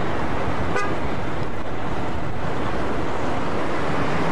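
Diesel locomotive slowly hauling a rake of passenger coaches: a steady, loud mechanical noise. About a second in there is a very short high-pitched squeak, and a low hum comes in near the end.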